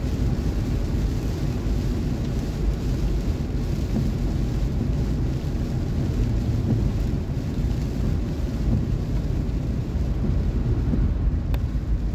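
Steady in-car driving noise in rain: a low rumble of the engine and tyres on a wet road, with an even hiss of rain and spray on the windshield. A single faint click near the end.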